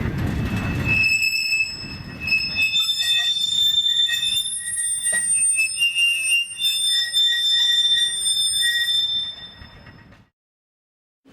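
Freight wagon wheels squealing in a hump-yard rail brake (retarder) as the brake beams grip the wheels: a loud, high-pitched screech of several tones at once that starts about a second in and shifts pitch now and then, over a low rumble of the rolling wagons. It fades and cuts off near the end.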